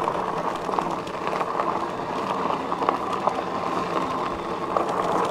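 Fat tyres of a Himiway Zebra electric bike rolling over a packed dirt and gravel trail: a steady crunching rolling noise with small scattered clicks of grit.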